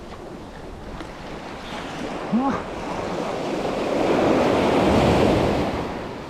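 Sea waves on a beach: one wave swells up, peaks about two-thirds of the way through, then washes back and fades. A brief rising tone sounds about two seconds in.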